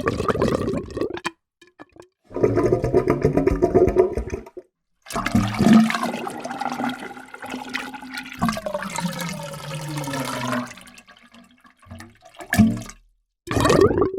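Water gurgling in several separate bursts with brief dead-silent gaps between them. The longest, in the middle, has a hollow gulping tone that drops in pitch as it fades.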